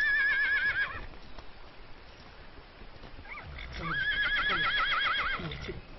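A horse whinnies twice: a short call at the very start, then a longer one from about three and a half seconds in, its pitch wavering quickly up and down.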